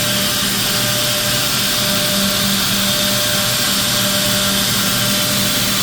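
SCM K230 edgebander running steadily: an even motor hum with a continuous airy hiss over it, without breaks or knocks.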